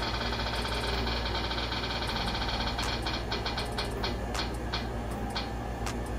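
Online spinner wheel's ticking sound effect as the wheel spins: a rapid run of clicks that slows after about three seconds into single ticks spaced further and further apart as the wheel comes to rest. A steady low hum runs underneath.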